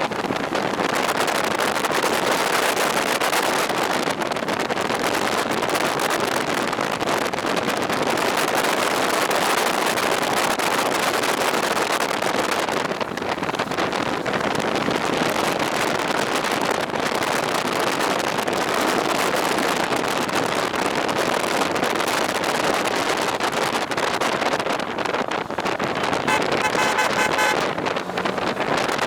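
Steady rush of wind noise on the microphone from a moving two-wheeled vehicle climbing a road. Near the end, a short pitched tone sounds for about two seconds.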